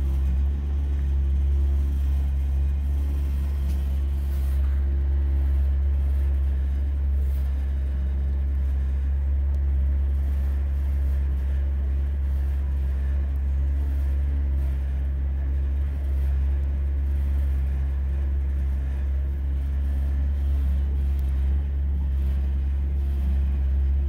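Boat engine running steadily underway, a low, even drone heard inside the cabin.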